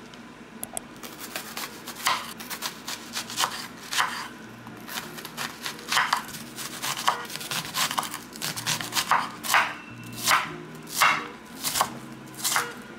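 Kitchen knife slicing and dicing a peeled onion on a wooden cutting board: a run of cuts, each ending in a knock of the blade on the board, louder and more regular in the second half.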